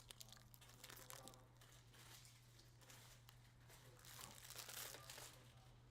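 Plastic wrapping being torn and crinkled as a sealed trading-card box is opened. The crackling runs on with many small scratches and gets louder a little after four seconds in.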